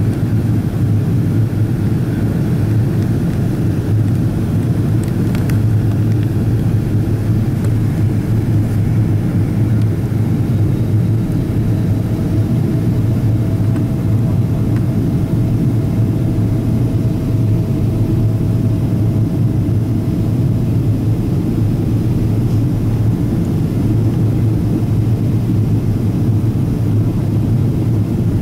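Steady cabin noise of a Boeing 777-200ER in flight with its Rolls-Royce Trent 892 engines, a low, even rush of engine and airflow heard from inside the cabin. A faint steady tone sits over it for several seconds in the middle.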